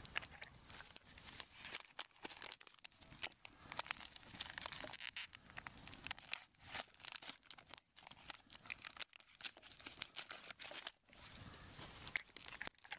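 Plastic packaging of a homemade MRE crinkling and tearing as the pack is opened and handled, an irregular run of crackles.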